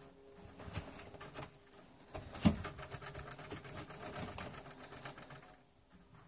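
Nesting hens making low, cooing clucks in plastic-bucket nest boxes, with rustling in the straw. There is a sharp knock about two and a half seconds in, and the sounds die away near the end.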